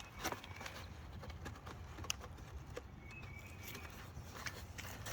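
Faint scattered light taps and scuffs, a few at irregular intervals.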